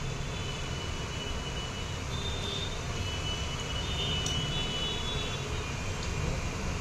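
Steady low hum and hiss of background noise, with faint thin high tones about two to four seconds in.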